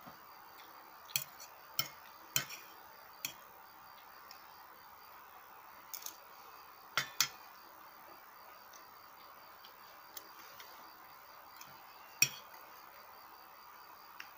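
Scattered sharp clinks of metal spoons against stainless-steel bowls, about eight in all, the loudest a quick pair about seven seconds in and a single one near the end. A faint steady insect chirring lies under them.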